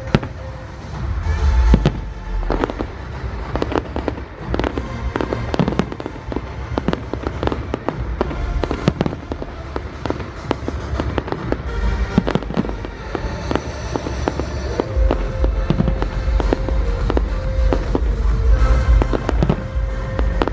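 Fireworks display going off: a rapid, continuous string of bangs and crackles over music, which swells with a heavier bass and a held note about three-quarters of the way through.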